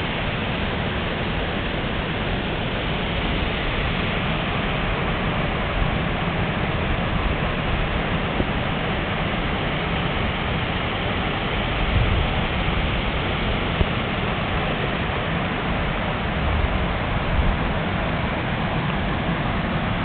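Steady rushing of a rocky stream running over rapids, with a few brief low bumps about halfway and later on.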